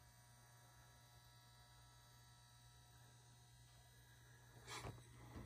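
Near silence: a faint steady electrical hum, with a faint brief rustle near the end.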